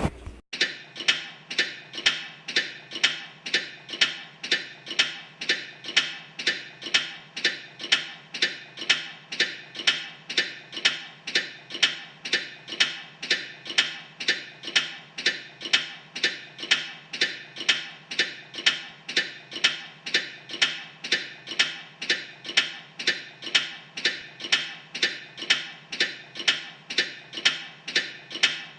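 Background music with a steady, ticking beat of about two pulses a second.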